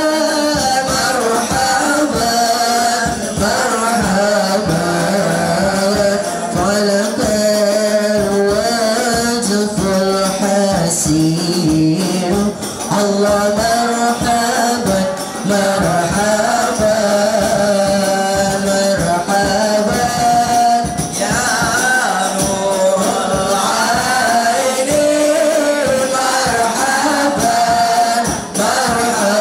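A boys' group singing an Islamic devotional song (sholawat) into microphones, accompanied by rebana frame drums beaten in a steady rhythm, amplified through a PA system.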